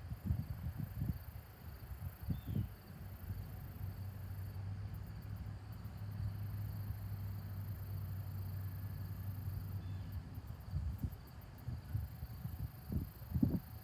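Insects chirping outdoors in short, very high-pitched pulsed trills every few seconds, over irregular low rumbles and thumps.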